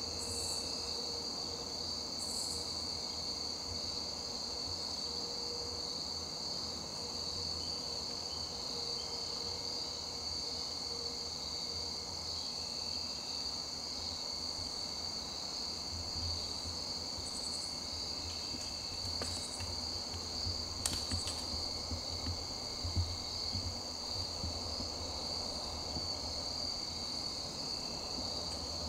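Steady high-pitched insect chorus trilling without a break, with a few faint clicks about two-thirds of the way in.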